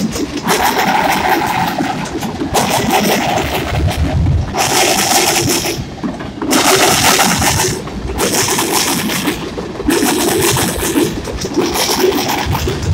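Freight train of covered hopper and tank cars rolling past close by: steel wheels clattering over the rail joints, the loud rumble and clacking surging and dipping every second or two as the cars and their trucks go by.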